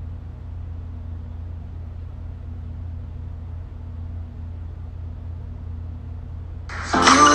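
Steady low rumble with a faint hiss over it and no clear events. Music with a beat starts abruptly near the end.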